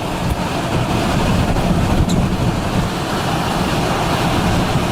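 Strong storm wind blasting against the microphone: a steady, loud rushing noise with a heavy low rumble, strong enough to carry debris.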